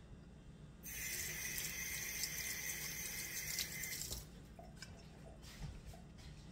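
A steady hiss about three seconds long, starting about a second in and stopping abruptly.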